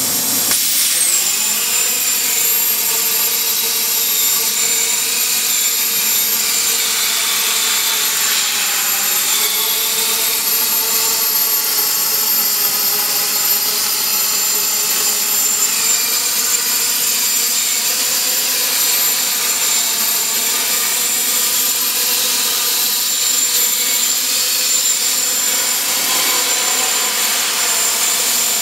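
CNC plasma torch cutting a steel rectangular tube: a loud, steady hiss with a thin high whine that drops in pitch and settles about a second in.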